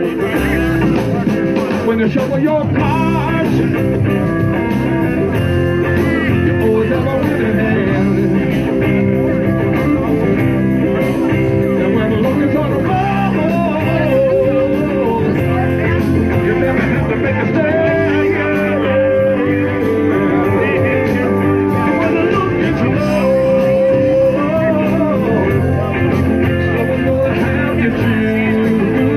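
Live blues band playing an instrumental stretch with electric guitar leading in bending, sliding lines over bass and drums.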